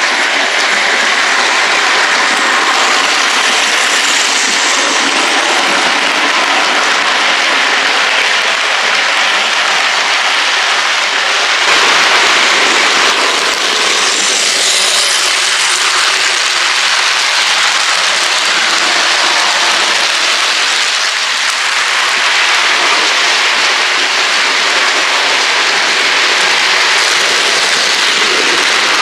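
OO gauge model trains running along the track close by, a steady rushing rattle of motors and wheels on rail that swells slightly as a model steam locomotive passes near, about twelve seconds in.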